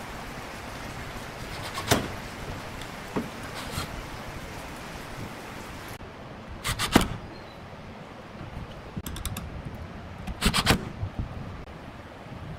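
Scattered sharp knocks and clatters over a steady hiss, with short flurries about seven seconds in and again near ten seconds; the one about seven seconds in is the loudest.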